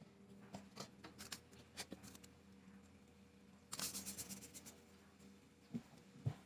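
Faint scattered clicks and taps from small objects being handled, with a quick run of sharper clicks about four seconds in and a low steady hum underneath.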